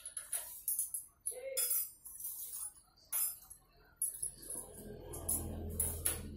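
Sharp metallic clinks and taps of steel tooling being handled as a valve seat cutter is fitted at a drill press chuck. About four seconds in, a low hum starts and runs under the clinks until the end.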